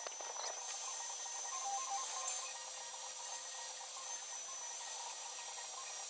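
Corded angle grinder running at a steady speed with a high whine and a hiss as its disc cuts into a steel angle bar.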